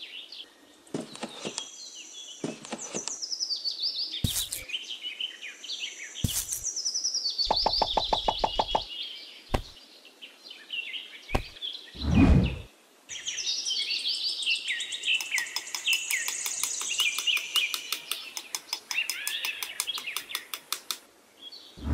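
Songbirds chirping and twittering in a birdsong ambience, with a fast rattling trill in the second half. A few sharp knocks and one loud whoosh about halfway through stand out.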